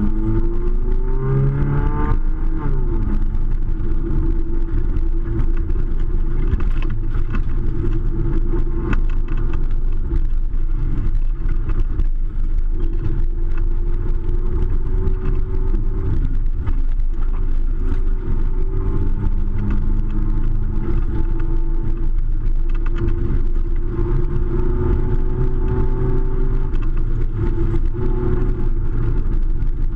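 Mud truck's engine revving up over the first couple of seconds, then held at high revs with small rises and falls over a deep rumble.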